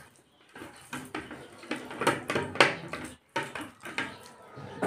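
Close-up eating sounds of a meal of rice and pork curry eaten by hand: a run of short, sharp wet clicks and smacks from chewing and from fingers working the food on the plate.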